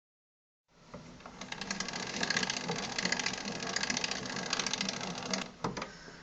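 The mechanism of an HMV 163 cabinet gramophone running, making rapid, even clicking over a low hum. It ends with sharp clicks about five and a half seconds in.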